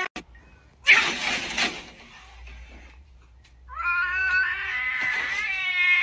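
Domestic cat yowling in a territorial standoff with another cat through a glass door: one long, drawn-out call starts about two-thirds of the way in and keeps going, after a short loud rush of noise about a second in.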